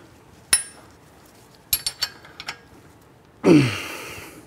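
Metal hand tools clinking against the Brembo caliper and bolts as they are checked for tightness: a single sharp clink, a few quick ticks a little later, and a louder clatter about three and a half seconds in.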